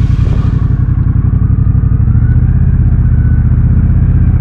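Triumph Bobber's 1200 cc parallel-twin engine running at a steady low road speed, loud and close. A high hiss over it fades out about a second in.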